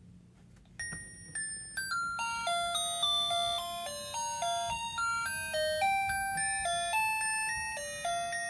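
Gemmy animated knitting teddy bear's sound chip starting a tinny electronic melody about a second in: a run of plain single beeping notes, each struck sharply and fading, over the steady low whir of its gear motor driving the knitting arms.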